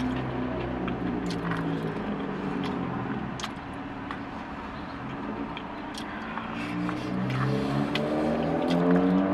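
A car engine running, its pitch rising steadily over the last few seconds as it accelerates, heard from inside a car cabin. A few light clicks of a plastic fork against the food bowl come through.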